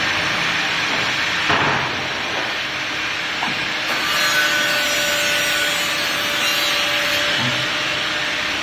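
Metal parts of a filling machine's nozzle mount rubbing and scraping as they are fitted by hand, over a steady hiss. A brief louder burst about a second and a half in, and from about four to seven seconds the hiss turns brighter with a faint steady whine.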